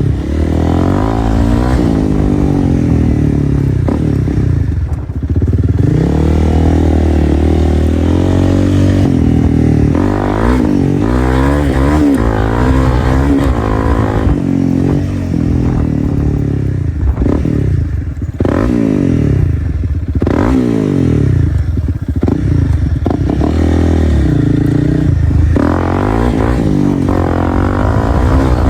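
2025 Honda CRF300L's single-cylinder four-stroke engine, straight-piped through a Dominator exhaust, revving up and falling back again and again as the bike is ridden.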